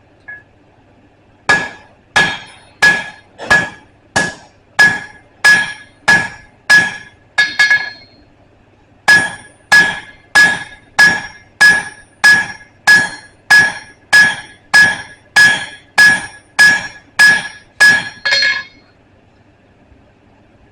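Blacksmith's hammer striking on an anvil in steady blows, about one and a half a second, each with a bright ring. Two runs of strikes, broken by a short pause about eight seconds in, each ending with a quick double blow.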